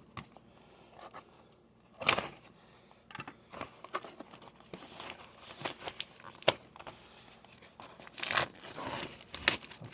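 Box packaging being torn open and crinkled by hand, in irregular bursts of tearing and rustling.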